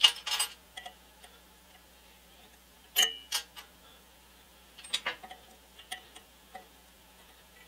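Scattered small metal clicks and clinks from an adjustable wrench being handled and set on a fitting of an air compressor's cylinder head. The loudest is a short ringing clink about three seconds in, with lighter clicks near the start and a few more after the middle.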